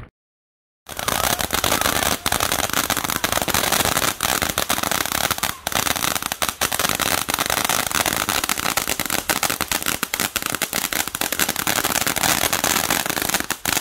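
Ground fountain firework spraying sparks, with a dense, continuous crackling and popping that starts about a second in.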